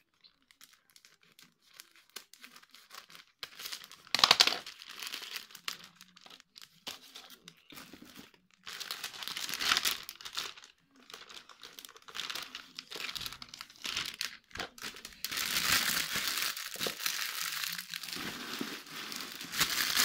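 Clear plastic packaging of a pack of coloured craft sheets crinkling and rustling as it is handled and opened. It comes in irregular bursts with a sharp crackle about four seconds in, then near-continuous crinkling over the last five seconds.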